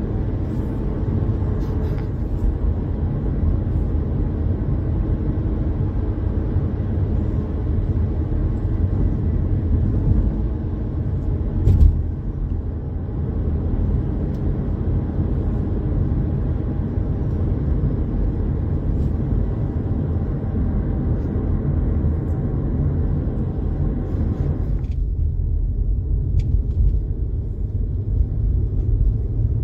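Steady low rumble of road and tyre noise inside a moving car, with one short thump about twelve seconds in. Near the end the higher hiss drops away and only the low rumble is left.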